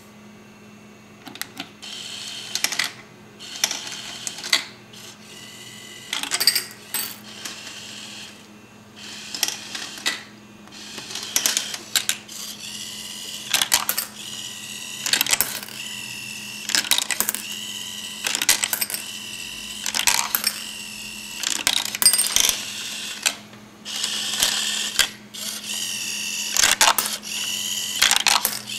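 Homemade Skittles sorting machine running its sorting cycle: hobby servos whine in short bursts every one and a half to two seconds as the turnstile turns and the chute moves, with clicks and clatter of candies dropping into the bowls. A steady low hum runs underneath.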